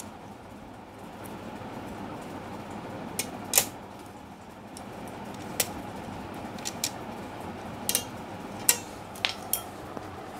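Scattered sharp clicks and taps of small metal and plastic parts as the end bracket of an HP LaserJet 1020 fuser assembly is handled and fitted back into place, about a dozen in all, the loudest about a third of the way in and again near the end. Under them runs a steady background hiss.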